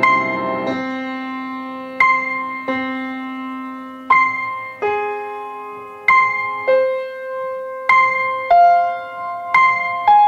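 Solo piano playing a slow melody, single notes and chords struck about every second or two and left to ring out.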